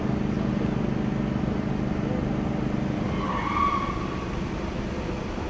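Heavy machinery engine running with a steady drone, and a brief high squeal about three and a half seconds in.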